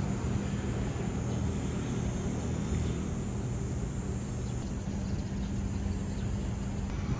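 Steady low rumble of city engine noise with a constant low hum under it, loud enough that the park is called quite noisy.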